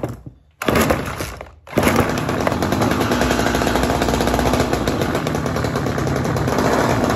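McCulloch Mac Cat 839 two-stroke chainsaw being pull-started on choke with fuel poured straight down the carburettor. After a pull of the starter cord, the engine catches about two seconds in and keeps running steadily, a sign that the saw will go.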